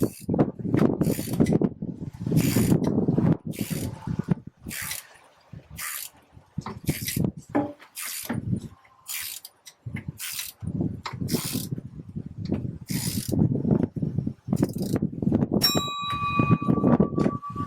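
Hand ratchet wrench being worked on bolts, clicking in short strokes roughly a second apart. Near the end a steady high tone starts up.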